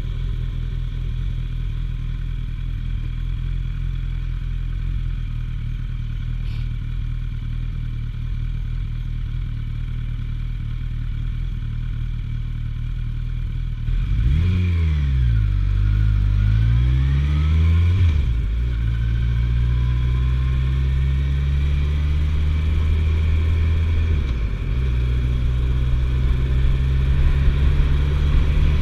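Suzuki GSF1250S Bandit's inline-four engine idling steadily, then about halfway through pulling away: the revs rise and fall, climb again and drop sharply twice as it shifts up through the gears.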